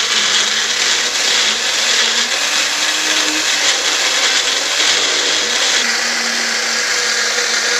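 Electric blender running steadily, puréeing a liquid marinade of onion, garlic, ginger, green chilies and lemon juice.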